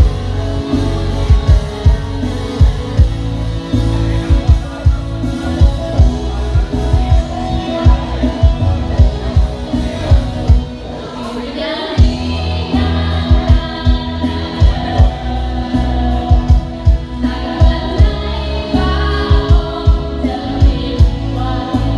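Music with singing over a steady drum beat; the backing thins out briefly around the middle, then the full beat comes back in.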